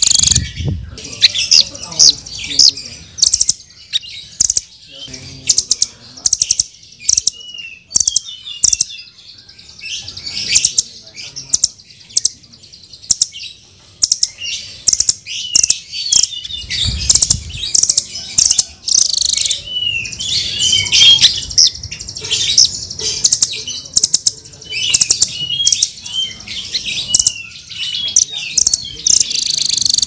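Blue nuthatch calling: rapid runs of short, sharp chirps and ticks in dense bursts, with a thinner stretch near the middle.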